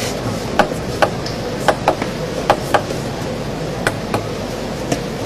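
Table tennis ball clicking sharply about nine times at irregular intervals, several in quick pairs, as it is bounced between points, over a steady background hum in the hall.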